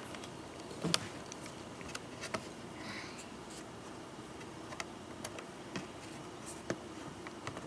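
A few faint, scattered clicks and ticks of a small screwdriver turning a screw in a laptop screen assembly, with the screw still loose.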